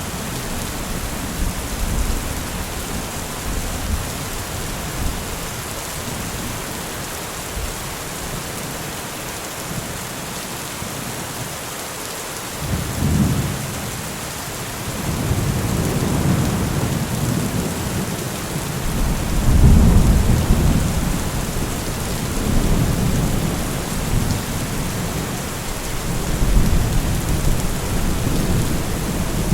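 Steady heavy rain falling, with low thunder rumbling under it. The rumbles roll in about halfway through and swell several times.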